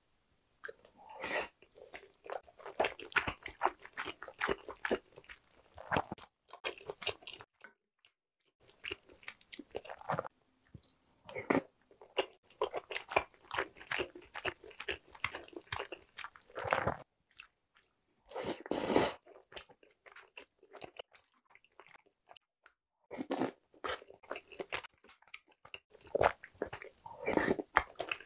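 Close-miked chewing of boiled eggs in spicy tteokbokki sauce: soft, wet mouth sounds in runs of quick small clicks, broken by short pauses. There is one louder burst about two-thirds of the way through.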